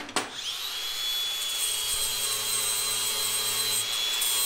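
Electric angle grinder with a flap disc spinning up about a quarter second in, then running with a steady high whine as it polishes a metal rod. Its pitch rises a little near the end.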